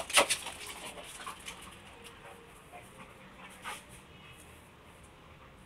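Red-nose pit bull panting in short, quick breaths, loudest in the first second or so, with one more breath near the middle, then quiet.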